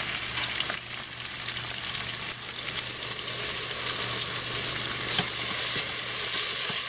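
Vegetables frying in hot oil: a steady sizzle with scattered small crackling pops over a faint low hum.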